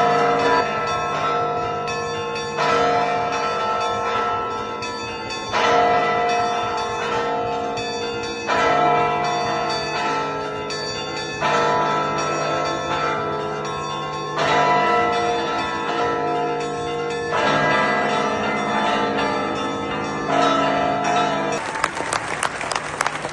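Church bells ringing, a fresh set of strokes about every three seconds, each leaving a long sustained ring of several tones.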